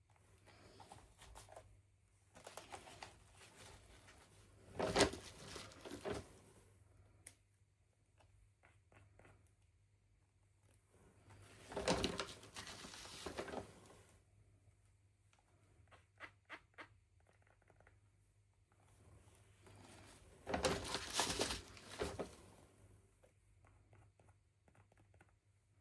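Packaging being crinkled and torn open by hand in three bouts, with a few light clicks in between.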